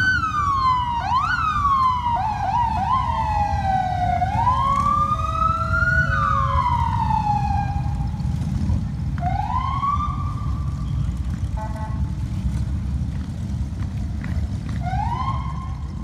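Vehicle siren wailing up and down in pitch: a few quick sweeps at first, then a slow rise and fall, then short rising swells near the end. Underneath is the steady low rumble of motorcycle engines.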